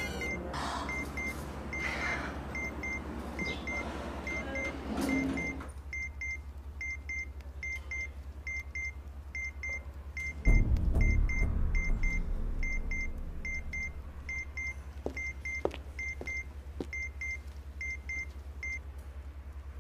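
Robot's low-battery warning sound effect: short electronic double beeps repeating about once a second over a steady low electrical hum, stopping shortly before the end. A deep rumble swells about halfway through and fades away.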